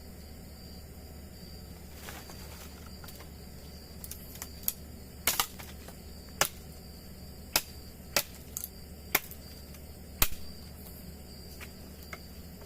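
Night insects trilling steadily in a high thin tone, with a series of about eight sharp, irregular clicks or taps in the middle.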